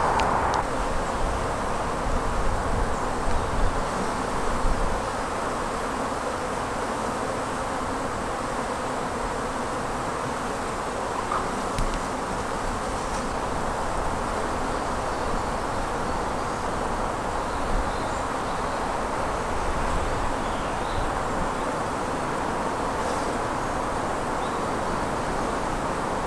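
Honeybees buzzing steadily as they fly around the hives, out on winter cleansing flights.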